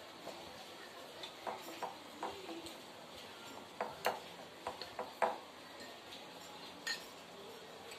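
Small wire whisk stirring flour into a thick cake batter in a glass bowl, its wires clicking and tapping faintly and irregularly against the glass.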